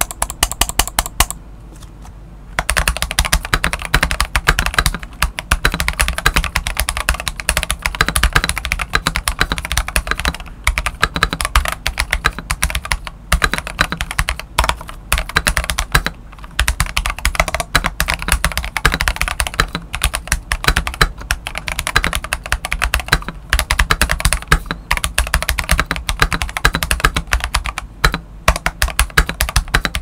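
Typing on a stock Keychron V1 mechanical keyboard with Akko CS Ocean Blue switches and CSA-profile PBT keycaps. A few keystrokes come first, then a short pause about a second in, then steady, fast typing.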